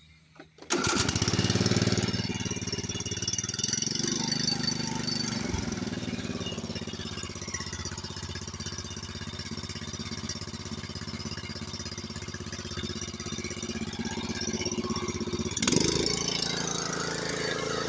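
A Craftsman R110 riding mower's engine starting from cold: it catches about a second in and runs, loudest over the first few seconds, then settles to a steadier, quieter run. A brief sharp rise in level comes near the end.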